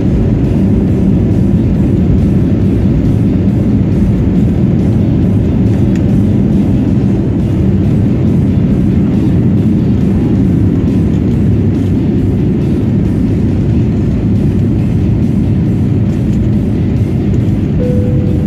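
Jet airliner engines at takeoff power, heard from inside the cabin as a loud, steady low rumble with runway noise while the plane accelerates and lifts off.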